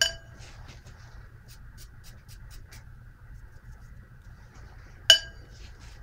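A paintbrush clinks against the rim of a water jar, twice, about five seconds apart. Each clink rings briefly and the second is louder, with faint light ticks between them.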